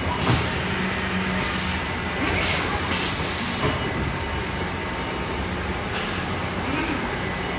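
Refrigerator packaging and conveyor line machinery running with a steady mechanical hum, broken by several short hisses of compressed air.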